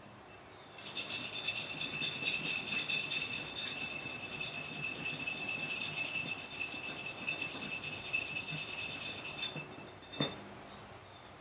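Steady abrasive rubbing on rusty metal, as in scrubbing rust off. It starts about a second in and stops a little before the end, followed by a single sharp knock.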